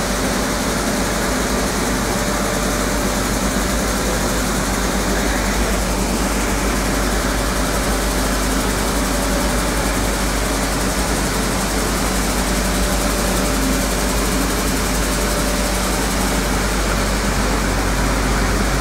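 Fully automatic atta chakki flour mill plant running: a steady mechanical drone of electric motors and stone grinding mills, with a strong low hum and a few steady tones.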